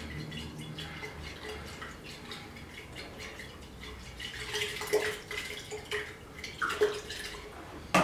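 Liquid sloshing in a glass conical flask swirled by hand, mixing used engine oil with solvent and precipitator so they react. A few short knocks, the last and loudest near the end, as the glass meets the table.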